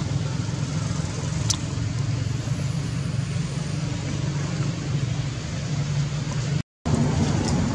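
Steady low rumble of a running motor vehicle engine. It cuts out briefly near the end.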